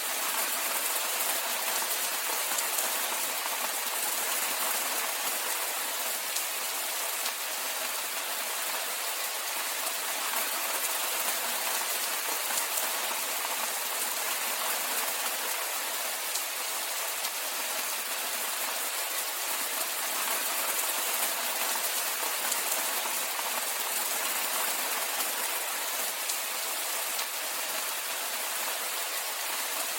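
Steady rainfall: an even hiss of rain falling on surfaces, with no change in intensity.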